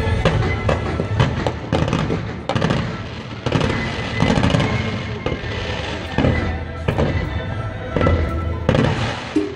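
Fireworks display going off in a rapid, continuous barrage of bangs and crackles, with music playing underneath.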